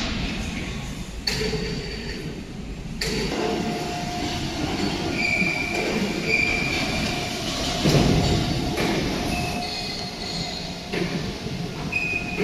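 Factory workshop machinery noise: a steady rumble with a held whine, intermittent high metallic squeals, and a few sharp clanks, the loudest about eight seconds in.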